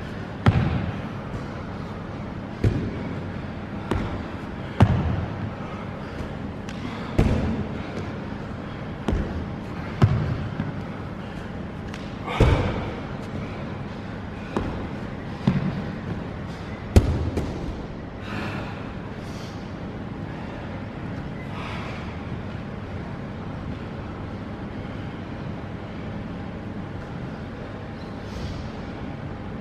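Feet thudding on a padded box and a wooden gym floor during box step-ups, about one thud every one to two seconds, stopping about seventeen seconds in; after that only a steady low room hum.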